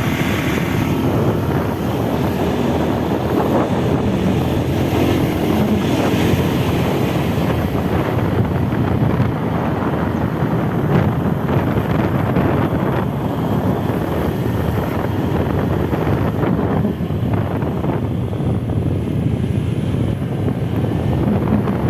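Loud, steady rumble of wind buffeting the microphone, with no clear engine note.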